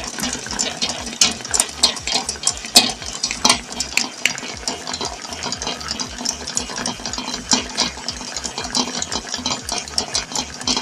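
Stand mixer running, its attachment turning flour-tortilla dough in a stainless-steel bowl: a steady motor hum with irregular knocks and clatter throughout. The dough is being mixed until it pulls away from the bowl.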